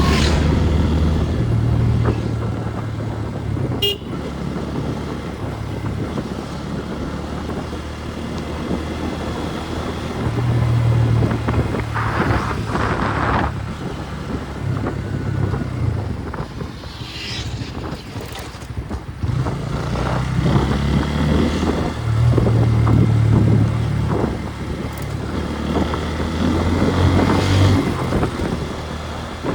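Motorcycle engine running while riding in road traffic, its pitch rising and easing with the throttle. A vehicle horn sounds briefly around the middle.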